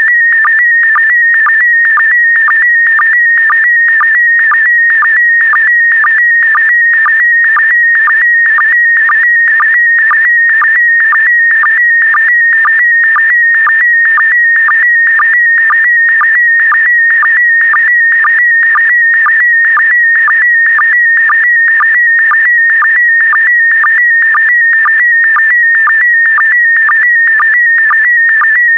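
PD120 slow-scan television (SSTV) image signal: a loud, high, warbling tone broken by a short lower-pitched blip about twice a second. The blips are the sync pulses, one for each pair of picture lines as the image is sent.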